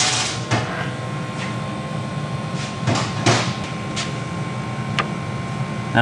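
1997 Chevy Blazer's heater blower motor running with a steady hum and a thin steady whine. Several sharp clicks and knocks sound over it, the loudest right at the start and about three seconds in. Its current waveform marks the motor as bad.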